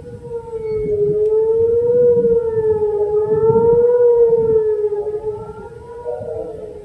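Outdoor warning siren sounding a steady single-pitched tone that wavers slightly. It grows louder and softer as the rotating horn sweeps past, loudest about two and four seconds in and fading near the end.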